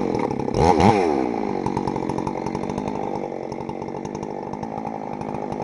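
Chainsaw engine running, blipped up in revs and back down just under a second in, then running steadily at low speed.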